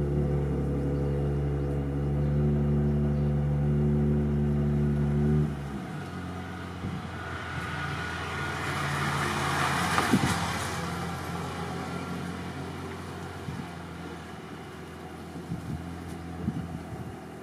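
A vehicle engine running steadily at idle, cutting off suddenly about five seconds in. Then a passing vehicle's noise swells up to a peak around ten seconds in and fades away.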